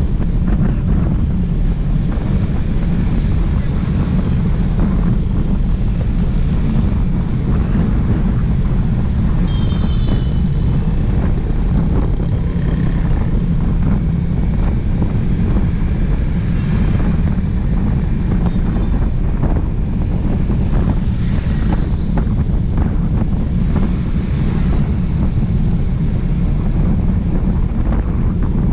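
Wind rushing over a GoPro Hero 5 Black's microphone on a moving motorbike, a steady loud low rumble. A brief high beep sounds about ten seconds in.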